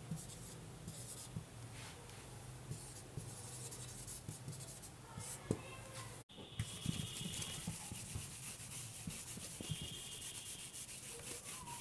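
Faint scratching and rubbing of handwriting strokes on a writing surface, over a low steady hum; the sound drops out briefly about six seconds in.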